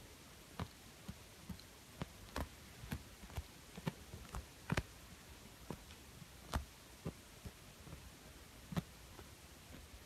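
A calico cat sucking and chewing on a fleece blanket: faint, irregular wet clicks and smacks, about two a second.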